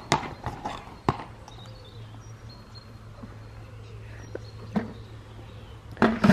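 A horse's hooves clopping on brick paving for a few steps, then stopping as it halts, with a steady low hum underneath. A short louder sound comes near the end.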